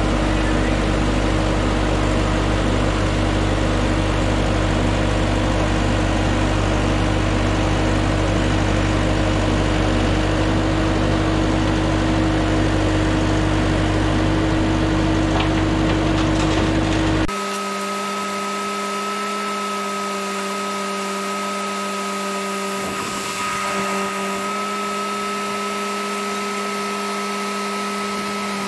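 Bobcat T300 tracked skid steer's turbo diesel engine running steadily under the operator. About two-thirds of the way through, the sound changes abruptly: the low rumble drops away, leaving a steady, thinner whine.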